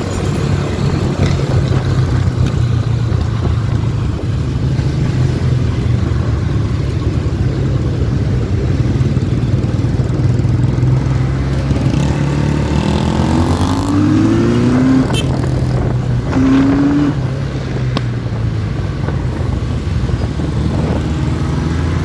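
MRT Vintage 400 motorcycle's engine running steadily under way, mixed with wind and road noise on the microphone. A little past the middle, a few short rising whines as revs climb.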